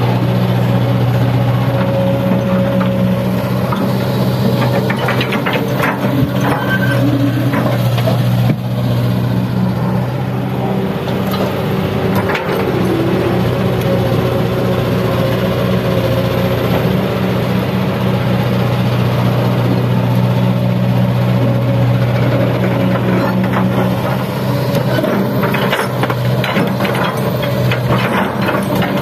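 Heavy diesel engine of earthmoving machinery running steadily under load, with scattered clanks and knocks a few times.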